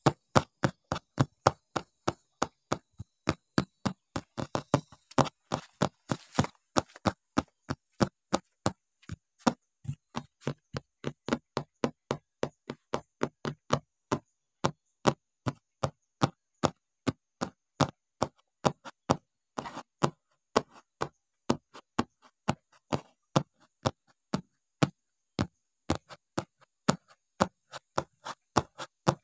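Sharp ticks or knocks repeating evenly, about two to three a second, with near silence between them.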